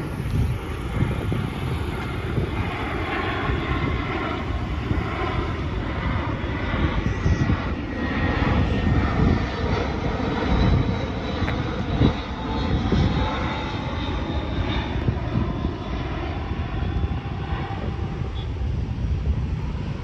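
Airbus A320-232's twin IAE V2500 turbofan engines on landing approach with gear down, passing low overhead: a steady jet rumble with a thin whine that slowly falls in pitch as it passes.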